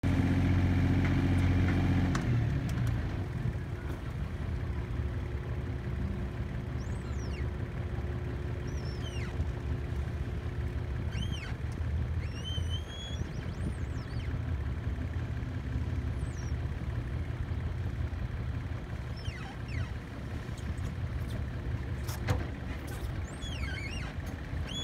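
A sailing yacht's inboard engine running in reverse while the boat backs into a berth. It runs harder for the first two seconds, then settles to a steady low running.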